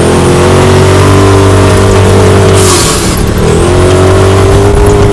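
Side-by-side UTV engine pulling up a dirt trail, heard from inside the cab. A steady loud drone dips in pitch about three seconds in and climbs back, with a short burst of hiss just before the dip.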